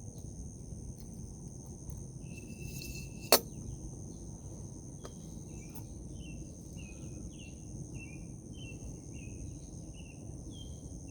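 Outdoor summer ambience: a steady high drone of insects, with a bird giving short chirps about twice a second in the second half. A single sharp click or tap about three seconds in is the loudest sound.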